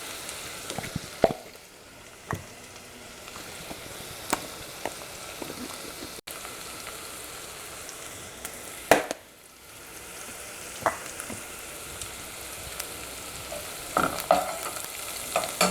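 Chopped shallots, garlic and herbs sizzling as they sauté in butter and a little olive oil in a pan, a steady frying hiss with scattered sharp clicks and knocks of a utensil stirring against the pan.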